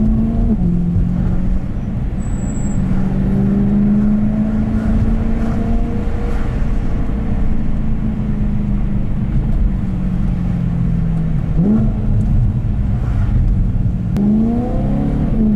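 BMW M3's S65 V8 engine driving through town traffic, its note holding and easing with the throttle, with two quick rises in revs near the end.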